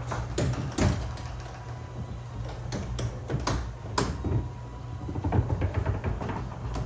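Sectional garage door being raised by an electric opener: a steady motor drone with irregular clicks and rattles as the door panels and rollers run up the tracks.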